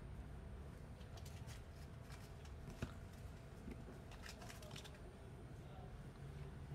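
Faint rustling and scattered soft clicks of a hand stroking a young cat's fur, over a low steady background hum.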